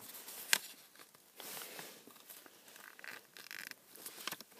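A sheet of origami paper handled and folded in half, giving faint rustling and crinkling with a few light ticks, the sharpest about half a second in.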